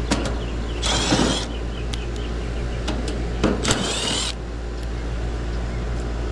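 Cordless drill-driver backing out the screws of an air-conditioner condenser's service panel: two short whirring bursts, about a second in and again near four seconds.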